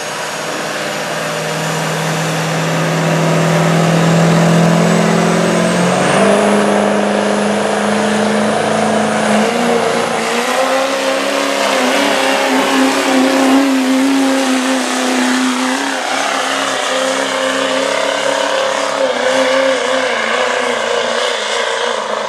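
A 2008 Chevrolet Duramax 6.6-litre V8 turbo-diesel pickup is running hard under load, pulling a weight-transfer sled. Its steady engine note steps up in pitch about six seconds in and again about ten seconds in, with a thin high whistle over it.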